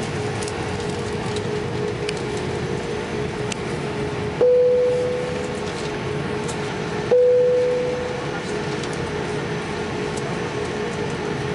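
Airliner cabin noise on the ground: a steady hum with a constant drone tone, broken twice by a single-tone cabin chime, a little under three seconds apart, each ringing out and fading over about a second.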